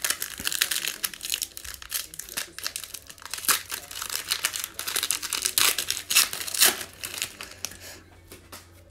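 Foil wrapper of a 2019-20 Illusions basketball card pack being torn open and crinkled by hand: a dense run of crackles and rips that dies down near the end.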